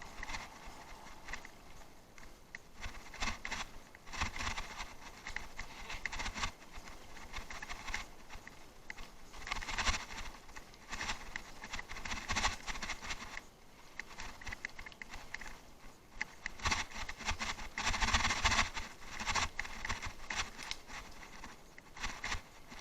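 Bicycle rattling and its tyres crunching over rough off-road ground: an irregular clatter with low thumps that swells and fades, loudest about ten and eighteen seconds in.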